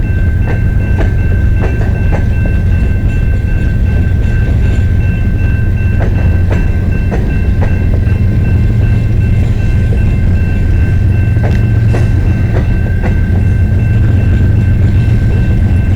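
Freight train backing slowly into a rail yard: the cars roll past with a steady low rumble, scattered sharp clicks and knocks, and a steady high-pitched whine held throughout.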